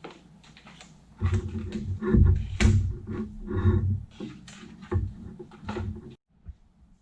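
Loud, irregular clunks and knocks of metal parts and tools while an exhaust manifold is worked into place. They start about a second in and stop abruptly near the end.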